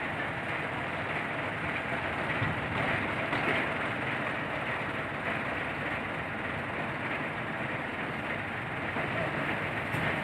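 Truck-mounted crane's diesel engine running steadily under load while it holds a Caterpillar road roller aloft on slings.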